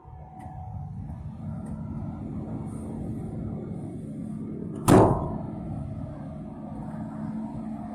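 A single loud slam about five seconds in, a door of the 1976 Mercedes 206D van being shut, over a steady low rumble with a hum.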